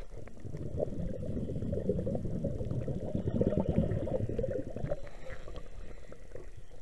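Muffled underwater bubbling and gurgling, swelling about half a second in and easing off about five seconds in.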